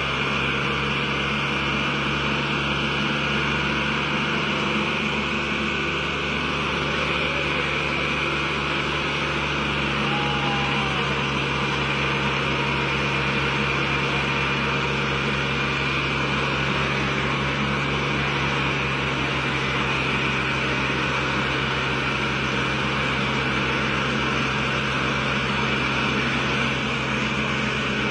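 Two Ford diesel tractors running at full throttle, engines labouring steadily under heavy load as they pull against each other in a chained tug-of-war.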